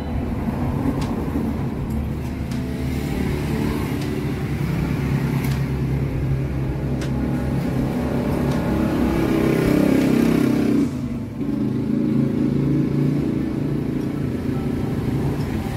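A motor vehicle engine running steadily. It swells about nine to eleven seconds in, then drops off abruptly for a moment.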